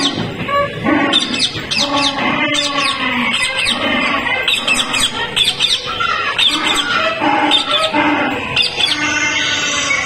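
Recorded bird calls played through a loudspeaker: many quick, high, downward-sweeping whistles repeated over and over, mixed with lower, harsher calls.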